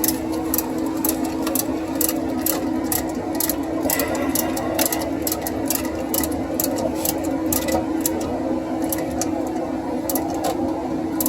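80% gas furnace running with a steady motor hum, its gas supply shut off for a loss-of-flame test, with many light irregular clicks over the hum.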